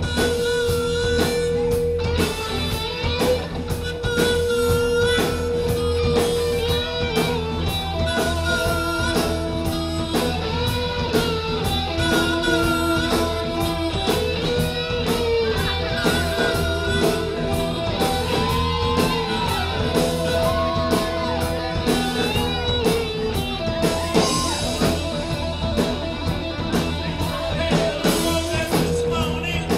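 Live band playing an instrumental blues-rock passage: a guitar lead plays long held notes and bends over a steady drum beat and bass.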